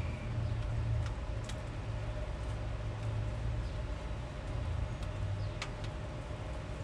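Steady low outdoor background rumble with a faint steady hum and a few faint clicks.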